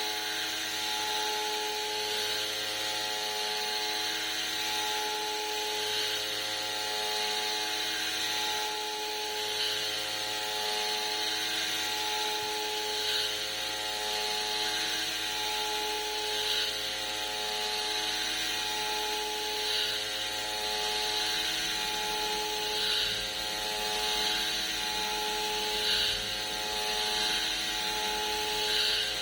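Homemade CNC milling machine cutting 303 stainless steel: a steady spindle and drive whine with a cutting hiss that swells about every three seconds as the tool makes repeated passes.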